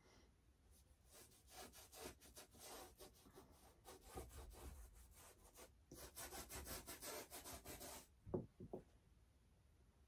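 Faint brush strokes on a large canvas: bristles scrubbing paint on in quick repeated strokes, with a short break about six seconds in. Two light knocks follow near the end.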